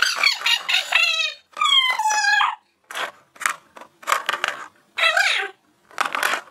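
High-pitched squeaky chattering and squeals in a cartoon squirrel voice, in about eight short outbursts with gaps between them.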